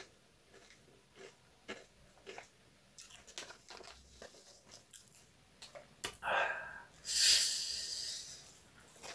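A person chewing tortilla chips with faint crunching, then two hissing breaths through the teeth about six and seven seconds in, the second louder and longer: a reaction to the burn of spicy chips.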